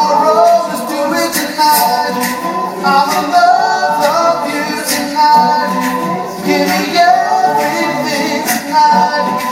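An all-male a cappella group singing a pop medley live, several voices in harmony with no instruments, amplified through the hall's PA.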